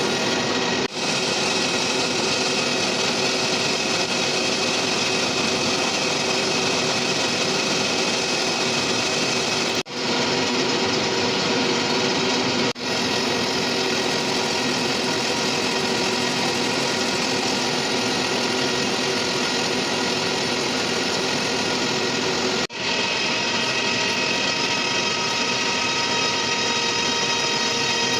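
Metalworking machine tool running steadily while machining a crane bearing flange, a dense mechanical hum and whine with several steady tones. It drops out briefly four times.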